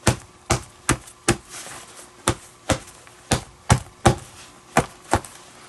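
An open hand slapping the palm of a leather Mizuno Global Elite junior baseball glove, about eleven sharp slaps at roughly two a second, often in pairs. The slaps press a patch in the repaired pocket down so it sticks.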